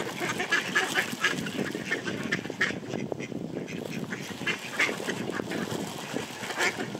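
A flock of mallards quacking, many short calls overlapping, as they crowd in to be fed bread, with a brief lull about three seconds in.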